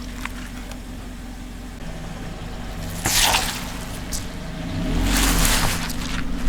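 Car engine idling steadily, with a short burst of crushing noise under the tyres about three seconds in and a longer, louder rush near the end as the engine pulls and the car rolls over the objects.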